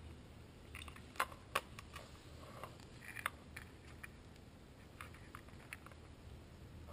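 Faint handling sounds of cables and plugs being moved by hand: soft rustling with a few light clicks, the sharpest about a second and a half in and again about three seconds in.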